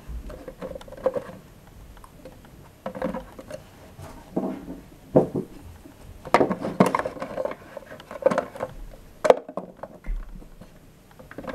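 Small plastic Shopkins toy figures clicking and clattering irregularly as they are handled and pushed into the plastic drawers of a toy fridge.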